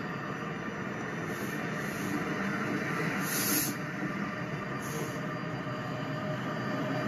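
LEGO train running past on plastic track: a steady whirring and rattling of its motor and wheels, with a few brief hisses.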